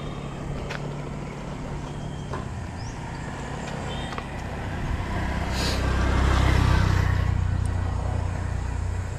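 A motor vehicle passing by: a low engine rumble swells from about five seconds in, is loudest around six to seven seconds, then eases off. A short hiss comes just before the loudest point.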